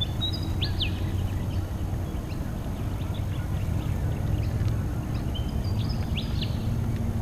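A bird calling twice in short high phrases, each a brief whistle followed by quick descending notes, over a steady low outdoor rumble.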